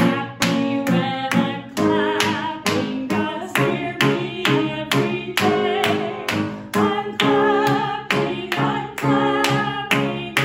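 A woman singing an upbeat song with piano accompaniment and steady hand claps on the beat, about two claps a second.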